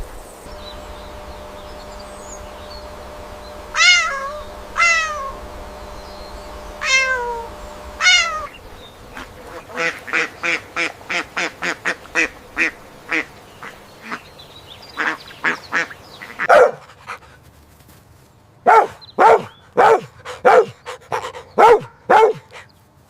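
A sequence of animal calls: a cat meowing four times, each meow falling in pitch, then a long run of quick duck quacks, and a few louder short calls near the end.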